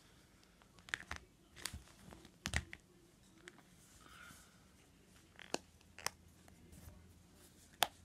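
A soft rubber phone case being worked onto an iPhone by hand: scattered light clicks and snaps as its edges are pressed over the phone, the sharpest near the end.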